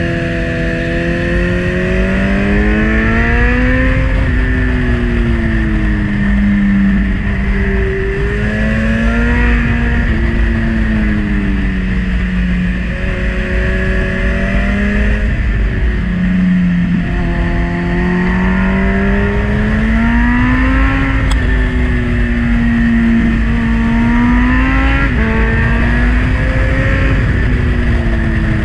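Kawasaki Z900's inline-four engine under way, its pitch rising and falling again and again as the throttle is rolled on and off through a run of corners. Heavy wind rush on the helmet-mounted camera runs underneath.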